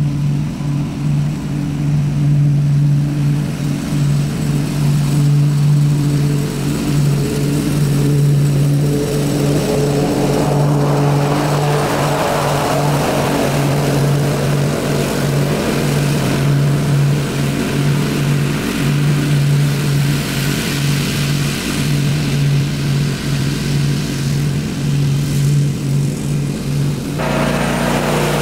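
Ariens Zoom 42 zero-turn riding mower running while mowing: a loud, steady engine drone that grows louder as the mower comes close about halfway through, then changes abruptly near the end.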